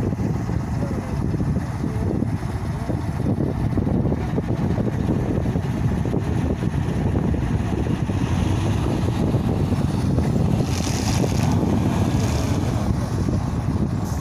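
Heavy trucks' diesel engines running under load, one truck towing another on a cable, with a steady low rumble. A brief hiss comes about eleven seconds in.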